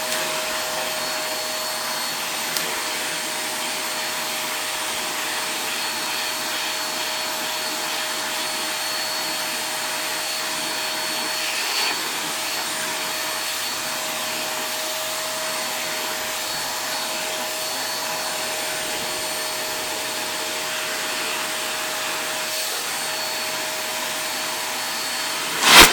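Vacuum cleaner running steadily, a constant rushing noise with a steady whine in it. A short, loud noise sounds right at the end.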